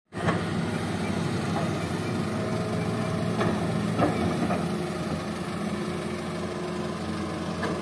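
Hitachi hydraulic excavator's diesel engine running steadily, with a few short knocks, the loudest about four seconds in.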